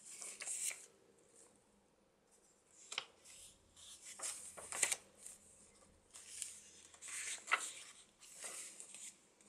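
Paper rustling and crinkling as the thick pages of a handmade junk journal are turned and handled, in about five separate bursts.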